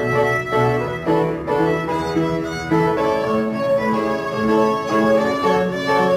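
Instrumental background music: violin and other bowed strings playing a slow melody of held notes, with piano.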